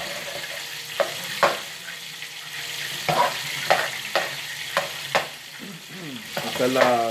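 Fried rice sizzling in a pan while a metal spoon stirs it, with about seven sharp scrapes and knocks of the spoon against the pan.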